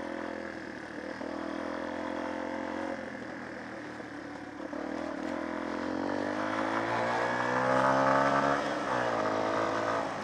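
Small off-road motorcycle engine running under way at steady revs, then revving up over a few seconds past the middle and dropping back near the end.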